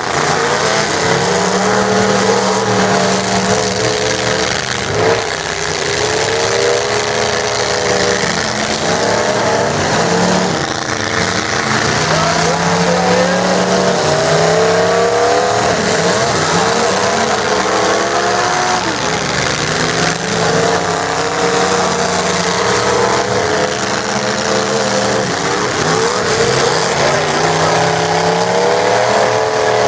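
Several demolition derby pickup trucks' engines revving and running loud and continuously, their pitch rising and falling as the trucks drive and jockey on the dirt.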